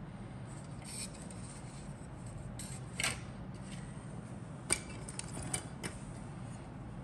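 A few light clicks and taps from small objects being handled on a cutting mat, the sharpest a little under five seconds in, over a faint steady low hum.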